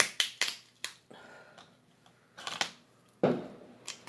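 Cooked lobster shell cracking and snapping as it is pulled apart by hand: a quick run of sharp snaps in the first second, more about two and a half seconds in, and a louder, duller crack a little after three seconds.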